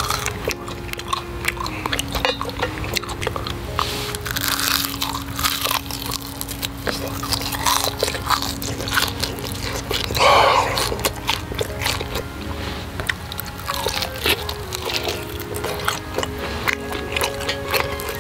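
Background music with held notes, over close, crisp eating sounds: bites and chewing on fried beef rib meat, with a louder crunchy burst about ten seconds in.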